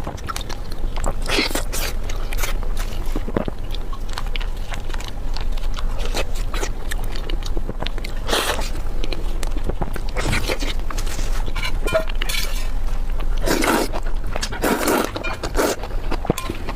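Close-miked eating: wet chewing and crunchy bites at an irregular pace, with louder clusters of crunching in the second half, over a steady low hum.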